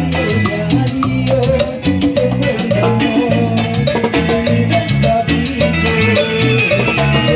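A live Latin dance band playing an instrumental passage: a steady bass line under drum kit and percussion keeping an even beat, with a melody on top.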